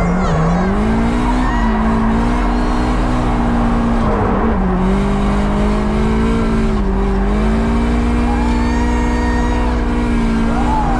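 Drift car's engine heard from inside the cabin, held at high revs through a drift with brief dips in pitch about a second and a half, four and seven seconds in as the throttle is lifted and reapplied, over a steady rush of tyre noise.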